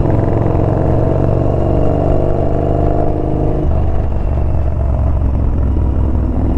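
Yamaha Bolt's air-cooled V-twin engine running under way on a motorcycle, with wind noise; the engine note shifts about halfway through as the throttle or gear changes.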